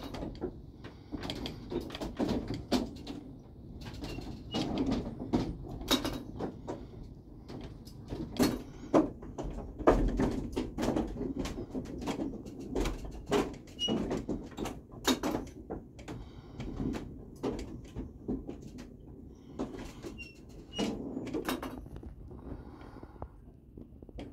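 Wooden running gear of a windmill turning: cogged gear wheels and wooden shafts creaking and knocking in an uneven clatter, with now and then a faint squeak. The mill is turning without grinding.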